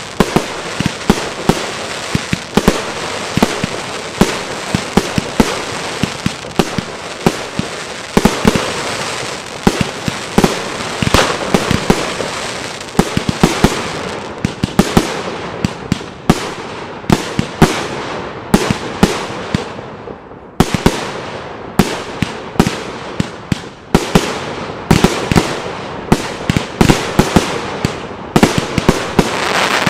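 Aerial fireworks display: shell bursts bang in rapid, irregular succession over continuous crackling, with a brief lull about two-thirds of the way through.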